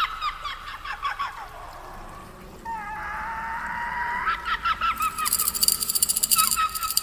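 A series of short, honking, bird-like calls with quick pitch flicks, a longer held call rising slightly in the middle, and a dense, fast high rattle joining in about five seconds in.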